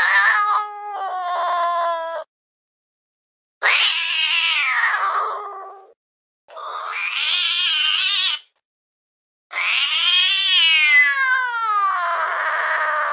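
Domestic cat giving four long, drawn-out meows with dead silence between them. Each lasts about two seconds, except the last, which runs about four seconds and slides down in pitch.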